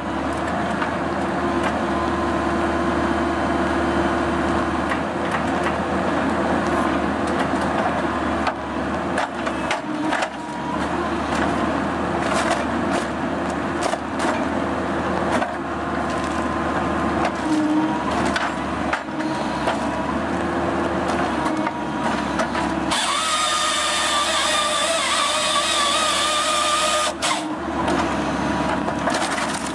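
Excavator-mounted RaMeC firewood processor head at work, with a steady hydraulic and engine drone under repeated cracks and knocks of logs being gripped and split. About 23 seconds in, a saw cuts through a log for about four seconds.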